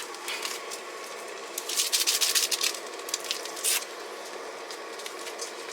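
Rustling and crinkling of a ration sachet being handled and opened, in a burst about two seconds in and a short one near four seconds, over the steady hiss of a lit gas stove.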